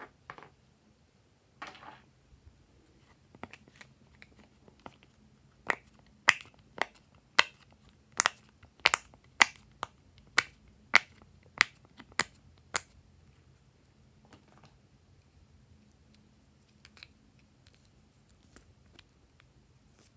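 Silicone pop-it fidget toy pressed with the fingertips, its bubbles popping one after another in a run of about a dozen sharp pops, roughly two a second.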